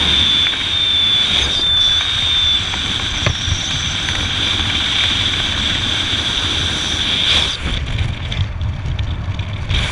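Wind rushing over the microphone during a descent under an open parachute canopy: a steady rumble with a constant high whistle that fades out about seven and a half seconds in.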